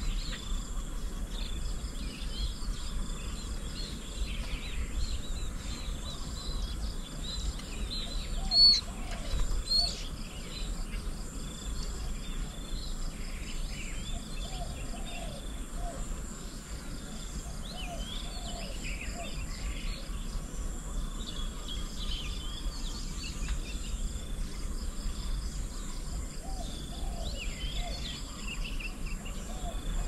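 Small birds chirping and calling on and off over a steady chorus of insects and a low background rumble, with one sharp, loud chirp about nine seconds in.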